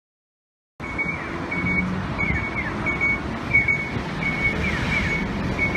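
Japanese pedestrian crossing signal chirping a repeated bird-like 'piyo' tone, about two to three chirps a second, over a steady rumble; both start suddenly about a second in.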